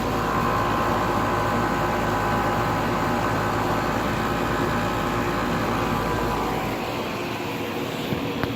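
Outdoor central air conditioner condensing unit running: a steady compressor and fan hum with a mid-pitched whine, easing slightly near the end.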